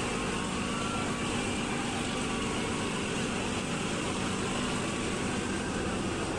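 Nilgiri Mountain Railway toy train under way, its steady running noise heard from aboard a carriage.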